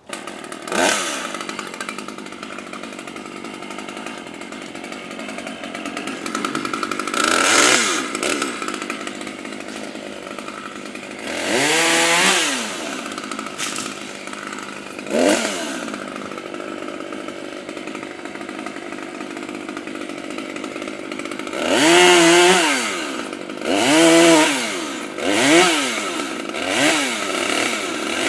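Chainsaw running, idling between about eight short throttle bursts in which the engine pitch rises and falls; the revs come in a cluster near the end.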